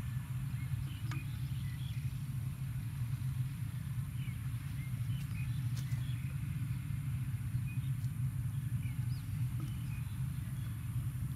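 Outdoor ambience: a steady low rumble with small birds chirping briefly now and then.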